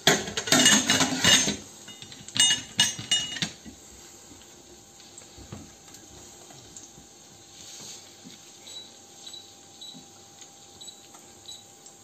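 Stainless-steel pressure-cooker lid clanking and clattering against the pot as it is set on and closed, for the first three and a half seconds. Then only a few faint clicks.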